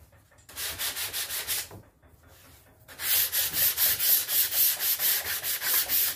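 Hand sanding block with sandpaper rubbed in quick back-and-forth strokes along the cut edge of a door panel, smoothing the jigsaw cut. There is a short bout, a pause of about a second just before the midpoint, then steady stroking to the end.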